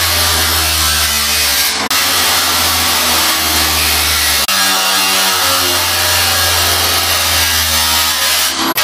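Handheld angle grinder with a cut-off disc cutting into the steel lid of a metal drum: a loud, steady grinding screech over the motor's hum. It breaks off abruptly and starts again about two and four and a half seconds in.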